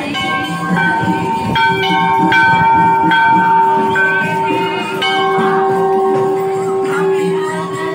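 Hanging brass temple bells struck repeatedly, a new strike about once a second, each ringing on so the tones overlap.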